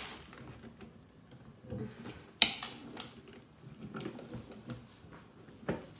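A blender's jar and lid being handled and fitted on the base: scattered light clicks and knocks, with one sharp click about two and a half seconds in.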